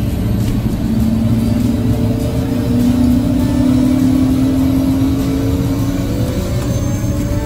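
Small tour aircraft's engine running up, loud and steady, its pitch rising slowly.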